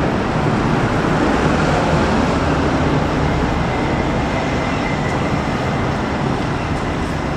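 Steady road traffic noise from a busy city street.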